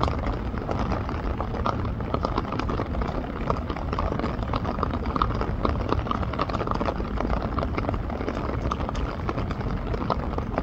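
Steady rain falling: an even hiss made up of many small, close drop ticks.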